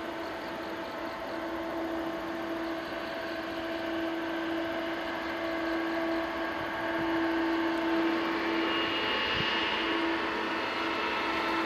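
Boeing 777-200ER's jet engines running at taxi power as the airliner turns, a steady hum with a held whine. It grows slightly louder, and a higher whine comes in over the second half.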